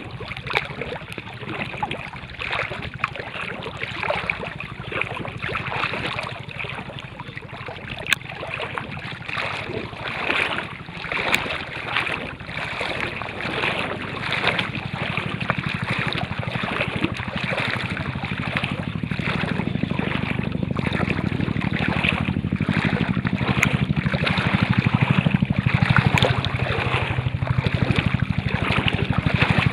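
Steady rush of moving water with many small splashes and crackles, and low wind rumble on the microphone that builds through the second half.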